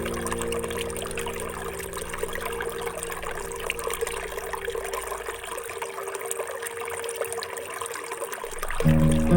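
Water trickling and pouring, a steady splashing hiss. Background music fades away under it and comes back in near the end.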